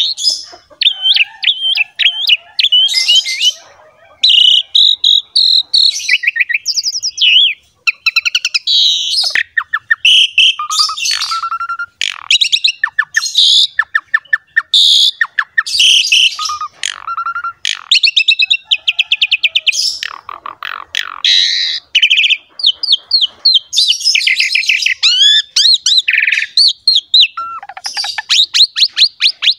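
Asian pied starling (jalak suren) in full song: a long, varied run of whistles, fast trilled rattles of rapidly repeated notes, and harsh chattering, broken by a few short pauses.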